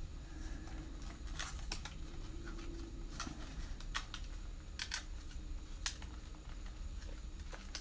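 Scattered light plastic clicks and taps as the Odyssey Titan quadcopter's body is handled and its camera is clipped on and connected, about eight clicks in all, over a steady low hum.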